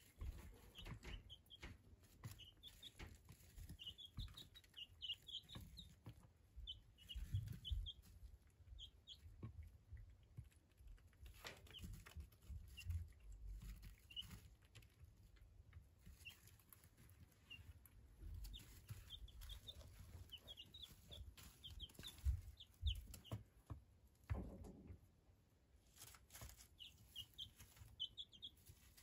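Month-old ISA Brown chicks peeping softly, short high chirps coming in clusters of several at a time with gaps between. A low rumble and a few soft knocks sit underneath.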